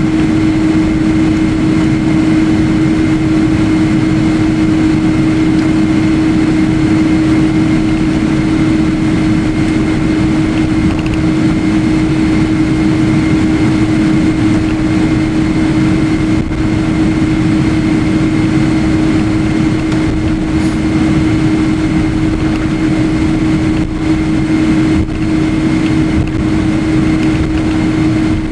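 Steady airliner cabin noise from a window seat: jet engine and airflow noise with a constant low hum and a fainter high whine.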